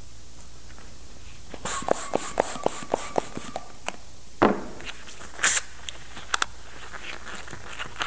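Hand pump inflating a long latex twisting balloon: a quick run of clicking strokes, about four a second, with a faint thin whistle. This is followed by a few louder rubs and scrapes of latex as the inflated balloon is handled.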